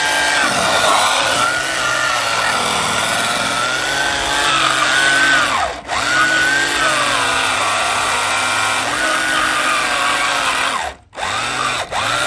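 Electric motor of an RC truck whining, rising and falling in pitch as the throttle is worked. It cuts out briefly about halfway through and again near the end.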